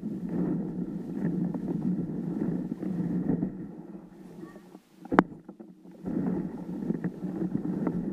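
Rumbling water noise around a moving kayak, coming in waves with short lulls, with one sharp knock about five seconds in.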